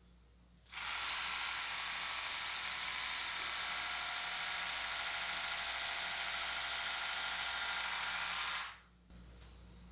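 Split-end trimming machine running steadily as it is drawn along a section of hair, trimming the split ends. It starts about a second in and stops shortly before the end.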